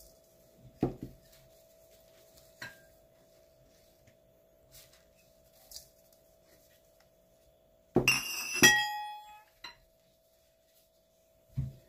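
Kitchenware knocking against a stainless steel mixing bowl: a knock about a second in and a light tap, then two sharp clinks that ring briefly, and a dull knock at the end. A faint steady hum runs underneath.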